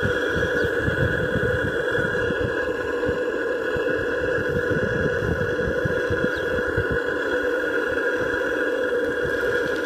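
Small Gemini model steam engine running steadily under steam, a continuous even mechanical running sound that does not change.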